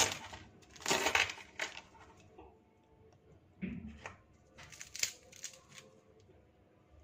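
Knife crunching through the crisp, flaky fried crust of a puff pastry meat pie. Quieter crackling follows from about three and a half seconds in as the pie is broken open by hand and its pastry layers flake apart.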